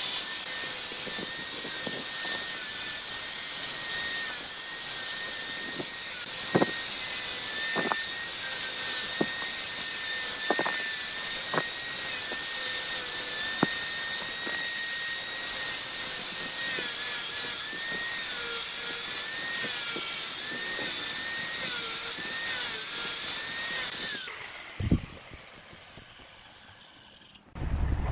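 Power-driven sanding drum pressed against a wooden vase spinning on a lathe: a steady high hiss with a thin motor whine and a few sharp ticks. The sanding dies away about 24 seconds in, and a single thump follows.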